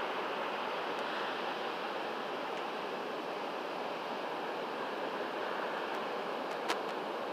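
Ocean surf breaking and washing over a wide foamy shore, a steady rushing noise, with one sharp click near the end.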